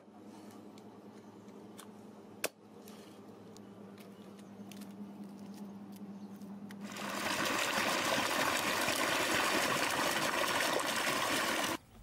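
Water pouring and splashing over chopped goat head pieces in a steel bowl: a loud, even rush that starts about seven seconds in and cuts off suddenly near the end. Before it there is little to hear apart from a single sharp knock.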